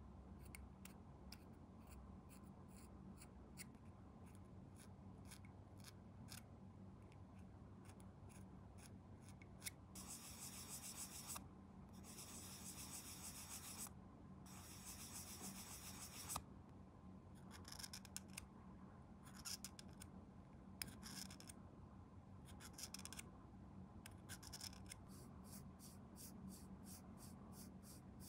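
Faint clicks and scraping of small hand tools working the plastic parts of a 1/24 scale model car kit, with three longer rasping strokes of a second or two each about halfway through.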